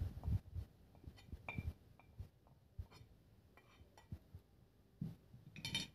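Scattered light clinks and taps of a spoon against a plate and a small glass bowl as ground dried coriander is spooned in, with a somewhat louder clink near the end.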